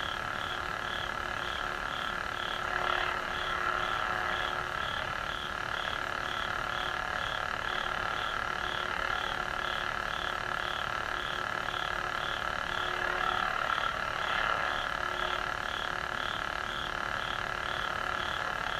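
Lightsaber soundboard playing its idle blade hum through the hilt speaker: a steady electronic drone with a high warbling tone that wavers about three times a second, swelling slightly a couple of times.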